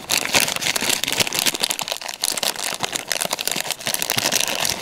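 Thin clear plastic bag crinkling and crackling as hands handle it close to the microphone, a dense run of irregular crackles.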